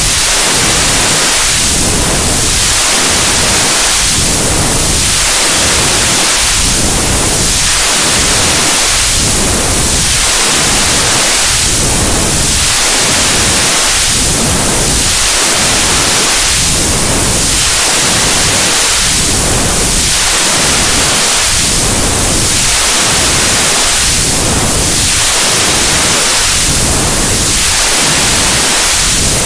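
Loud, steady white noise with a comb-filter sweep like a flanger, its tone sweeping down and back up about every two and a half seconds.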